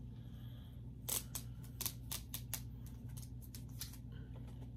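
A sticker being picked at and peeled off a Blu-ray case: a quiet run of short, sharp scratchy clicks, thickest in the first half and thinning out after.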